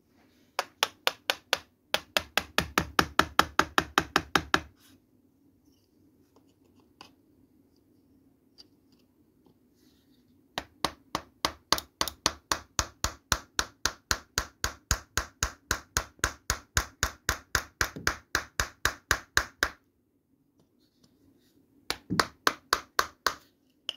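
A square wooden mallet tapping a wood chisel in quick, even strokes, several a second, as the chisel cuts into a painted wooden board. The taps come in three runs: a few seconds at the start, a long run in the middle, and a short burst near the end.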